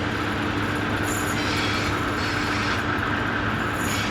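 Train running steadily past: a continuous rumble with a steady engine hum under it.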